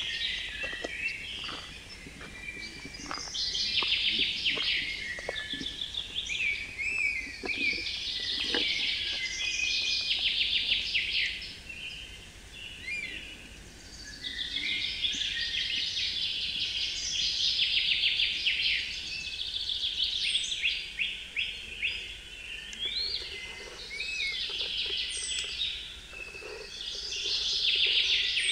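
Songbirds singing in forest: loud trilled phrases about two seconds long, repeated with short gaps, over quieter calls. Faint footsteps crunching on gravel in the first third.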